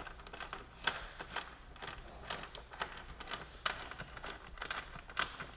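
Light, irregular metallic clicks and clinks, about two a second, as a motorcycle's countershaft sprocket nut is spun down by hand onto the output shaft, just hand tight.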